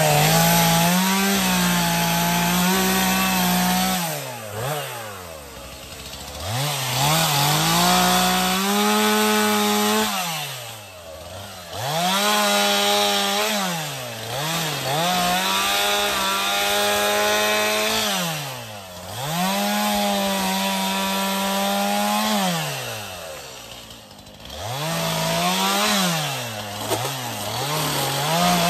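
Gas chainsaw revving to full throttle and cutting, then dropping back toward idle between cuts, about six times over, as it limbs a dead, bark-beetle-killed pine.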